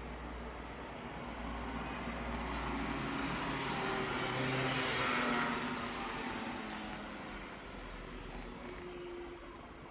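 Running noise heard from inside a moving passenger vehicle: a steady low rumble, with a rush of noise that swells to a peak about halfway through and then fades away.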